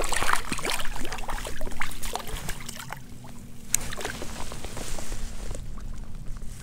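Water splashing as a small speckled trout is let go from a lip gripper and kicks away at the surface, busiest over the first couple of seconds, then lighter sloshing. A single sharp click comes a little past halfway.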